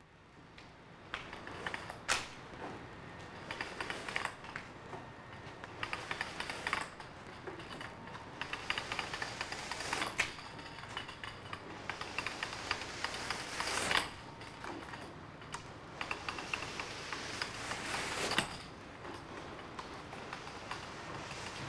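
A long-handled paintbrush scrubbing paint onto a large shaped canvas: a dense, scratchy crackle of bristles dragging over the surface, with a few sharp knocks where the brush strikes the canvas.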